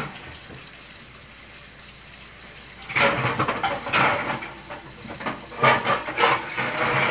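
Kitchenware clattering: from about three seconds in, bowls and pans knock and scrape irregularly as they are moved around in a cabinet, over a faint steady background hiss.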